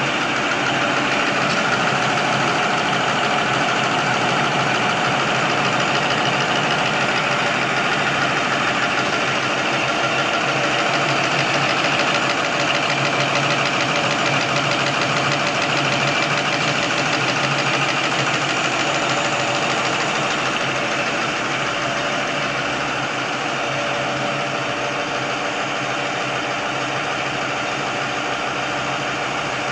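XY-OQ-7000A automatic napkin tissue folding machine running in production, with a steady, fast mechanical clatter and whir from its folding and cutting mechanism. It gets slightly quieter about two-thirds of the way through.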